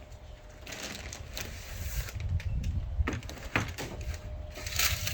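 Engine coolant splashing as it drains into a bucket under the car, with hissing bursts and several sharp knocks of the bucket and tools.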